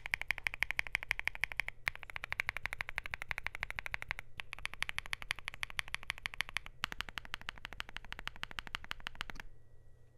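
Fast typing on a Luminkey65 mechanical keyboard with lubed Gateron Sylva switches, a polycarbonate plate and Thera75 keycaps: rapid keystroke clacks in runs broken by three brief pauses, stopping near the end.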